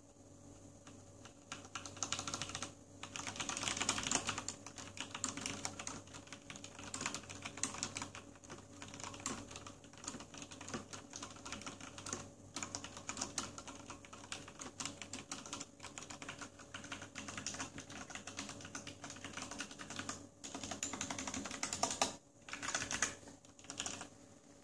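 Typing on a Corsair STRAFE RGB mechanical keyboard with Cherry MX Red linear switches: a fast, continuous run of key clacks, with brief pauses and quicker flurries.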